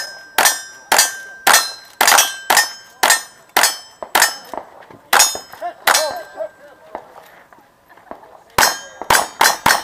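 Rapid gunshots from two cowboy-action shooters' rifles, each ringing off a struck steel target with a bright metallic clang. They come about twice a second for the first four seconds, a few more follow, then after a pause a quick string of five near the end.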